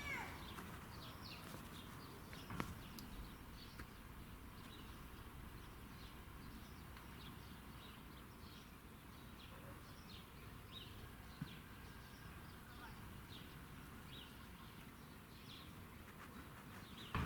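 Small birds chirping in short, repeated calls, faint over a steady low outdoor rumble, with a single sharp click about two and a half seconds in.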